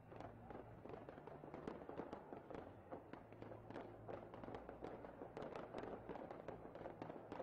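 Fireworks going off in quick succession: many sharp pops and crackles overlapping one another, heard faintly.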